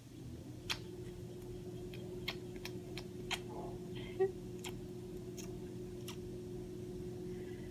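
A steady hum with a constant mid-pitched tone, over which come irregular sharp clicks, about one or two a second.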